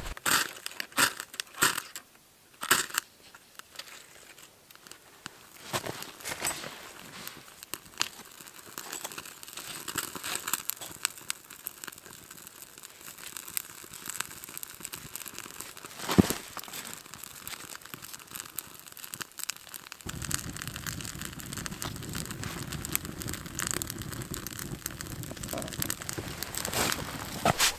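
Crinkling and crackling with frequent sharp snaps and clicks, as tinder and kindling are handled to start a campfire. About twenty seconds in, a low steady noise joins.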